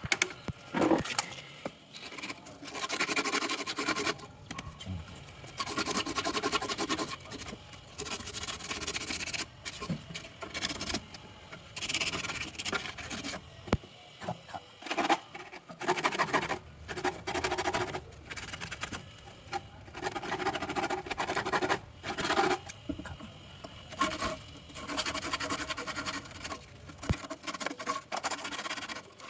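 Irregular scraping and rubbing in bursts of a second or two, with occasional sharp clicks: hands and tools at work on a refrigerator.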